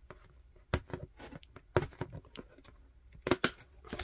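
Fingers handling the stiff cardboard pages of a board book and sliding out a cardboard pull-tab: a string of short clicks and scrapes, with a louder pair about three seconds in.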